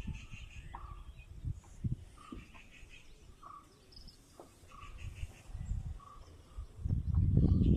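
A bird repeats a short call about once a second over a faint insect buzz in the countryside. A louder low rumble comes in near the end.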